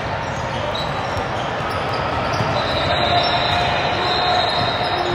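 Basketball game on an indoor court: the ball bouncing on the floor over the steady background din of play and voices.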